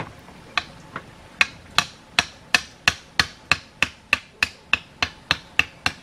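Bamboo stake being hammered into the soil, about three sharp ringing knocks a second, the first couple lighter.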